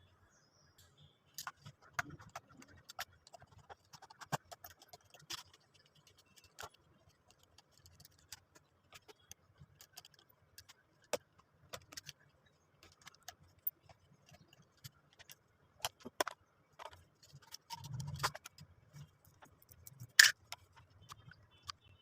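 Scattered light clicks, taps and clinks of an electric drill's plastic housing and small parts being handled by hand as it is taken apart, with one sharper click near the end.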